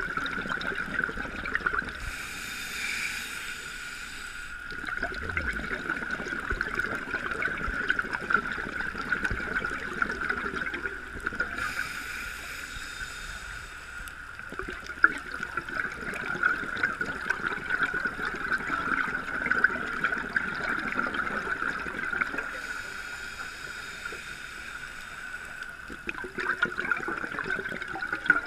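Underwater sound through a dive camera's housing: a steady crackling hiss from the water, broken about every ten seconds by a few seconds of bubbling hiss from a scuba regulator's exhaled bubbles.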